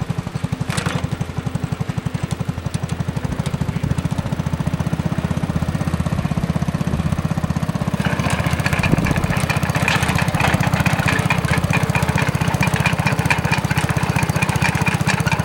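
Mini tractor's small engine running steadily, with a metallic rattle joining in about eight seconds in.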